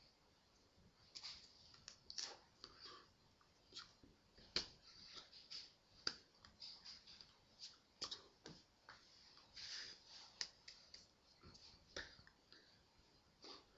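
Near silence broken by faint, irregular clicks and taps from a person signing: hands striking and brushing against each other, and small mouth sounds.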